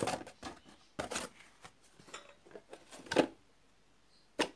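Lav glass tumblers knocking against each other and against the cardboard dividers of their box as one is pulled out, with cardboard scraping. A few separate clinks and knocks, the loudest about three seconds in.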